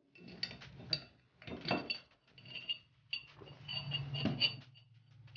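Metal retainer ring and grommet parts clinking and knocking against the accumulator shell as they are worked into its port by hand: a string of light metallic clinks, the loudest near two seconds in and again just past four seconds.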